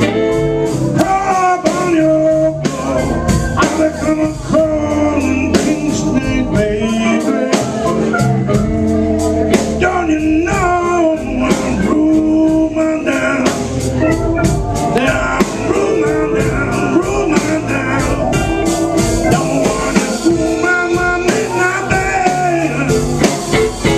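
Live blues band playing: a man singing into a microphone over electric guitar, electric bass, drum kit and keyboard.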